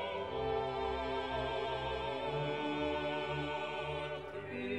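Background music: orchestral classical music in operatic style, with a wavering vibrato melody over sustained low notes.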